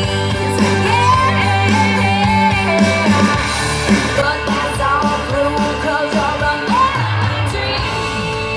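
A song with a singer over a band, played back through a compact powered PA speaker.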